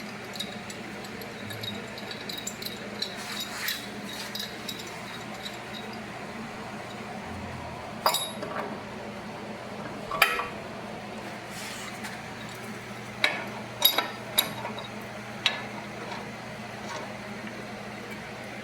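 Steel tools clinking and knocking against heavy steel plate in scattered sharp strikes, a few louder ones in the second half, over a steady low hum.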